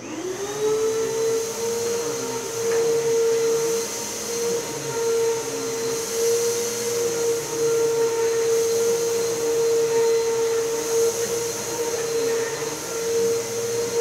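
Vacuum cleaner switched on, its motor spinning up to a steady whine within about half a second, then running steadily.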